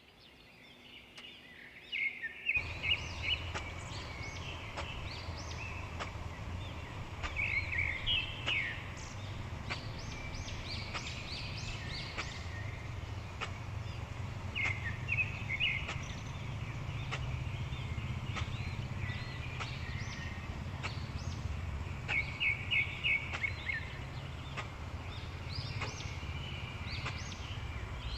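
Birds chirping in short bouts of quick repeated notes over a steady low hum, with faint scattered ticks.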